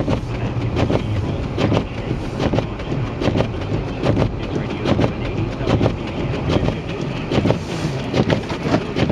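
SUV moving slowly through deep snow, with a rapid, irregular run of knocks and crunches over a low engine hum.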